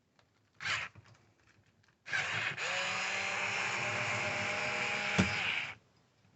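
Electric screwdriver undoing a Torx screw: a brief spin, then a steady run of about three and a half seconds with a click near the end.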